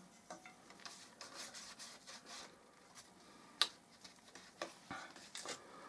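Faint rubbing with scattered light clicks: a paintbrush working wood stain onto a small piece of bird's-eye maple veneer. There is one sharper click a little past halfway.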